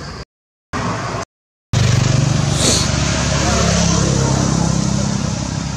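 A motor vehicle's engine running steadily close by, a loud low hum. It starts abruptly after two brief cuts to silence near the start.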